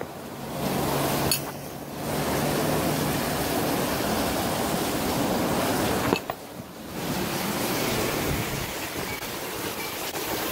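Heavy storm rain pouring down, a steady rush of water that drops away briefly twice, around two seconds and six seconds in.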